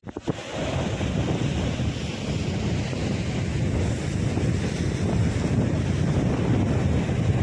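Steady wind buffeting the microphone over the wash of sea waves against the rocks.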